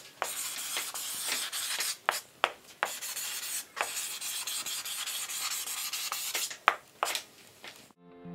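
Dry rubbing and scraping strokes with short pauses between them and a few sharp clicks, stopping abruptly near the end as acoustic guitar notes begin.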